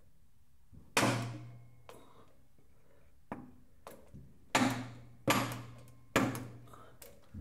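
Four sharp metal knocks on a tractor's steel hydraulic line and its fitting: one about a second in, then three close together between four and a half and six seconds, each ringing with a low hum for about a second. A few fainter ticks fall between them.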